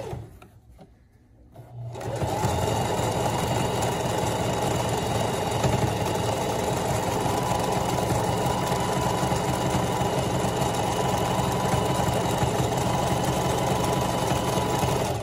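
Electric domestic sewing machine stitching a trim onto stretch shorts fabric. It is quiet for the first second or two, then runs steadily at an even speed and stops near the end.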